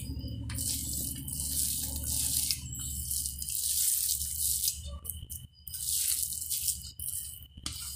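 A hand mixing and squeezing a thick, wet ground green gram dal and chopped onion mixture on a stainless steel plate, in irregular strokes of squishing and scraping against the metal.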